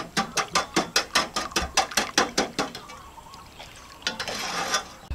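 Rapid, even patting of a ball of sticky rice-flour dough worked between floury palms, about six pats a second, fading out about two and a half seconds in. A short rustling scrape follows near the end.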